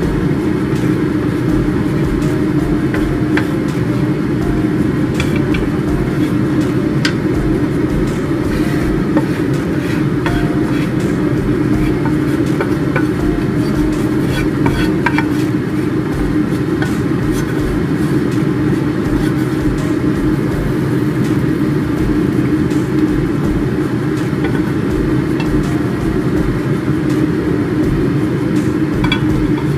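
Kitchen range hood extractor fan running steadily, with a few light clicks and scrapes of a wooden spatula against a frying pan.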